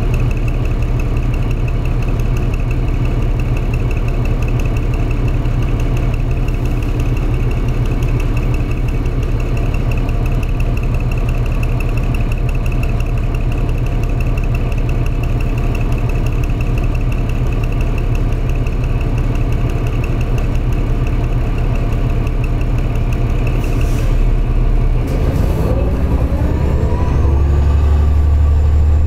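Flyer D40-LF city bus engine idling steadily, heard from inside the cabin, with a steady high whine alongside. About 25 seconds in there are a couple of clicks, then the engine revs up with rising pitch as the bus pulls away.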